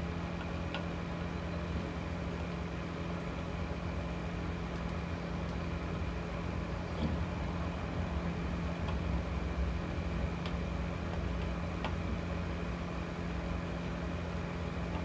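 Steady low mechanical hum of a running motor, with a few faint clicks as the wooden mandolin top is pressed and aligned on its sides in the mould.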